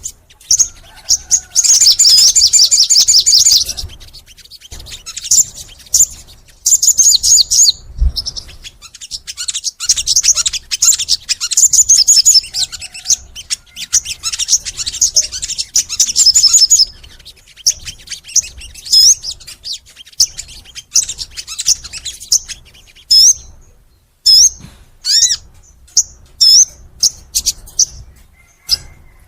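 Sogon bird singing in long, rapid runs of high chirping twitters, broken by short pauses, with shorter separate phrases toward the end.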